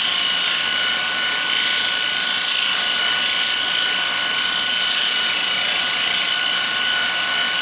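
Bench grinder running with a steady high whine while a steel pry-bar shank is held against it, giving a harsh grinding hiss as a rounded rub bevel is ground onto the underside of a carbide turning tool.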